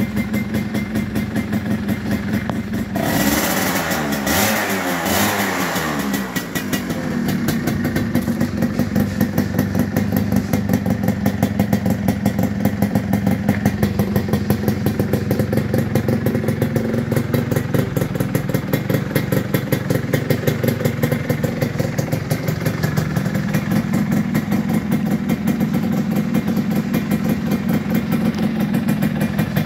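Yamaha F1ZR two-stroke motorcycle idling through an aftermarket split ('belahan') exhaust with a crisp, rapid rattle. About three seconds in, the throttle is blipped and the revs rise, then fall back to idle.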